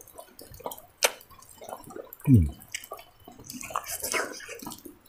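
A person chewing food with the mouth open: wet lip-smacking and sticky mouth clicks. About two seconds in comes a short, low sound falling in pitch, the loudest moment.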